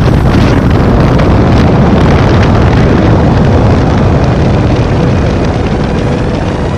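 Loud, steady wind rushing over the camera's microphone in a tandem skydive freefall, easing slightly near the end.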